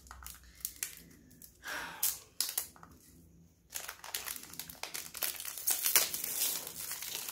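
Gift wrapping paper being crinkled and torn as a present is unwrapped: a few scattered rustles at first, then steady crackling from about halfway through.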